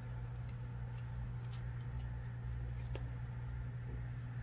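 Steady low hum under a few faint ticks and rustles of hands handling crochet yarn on a wooden table.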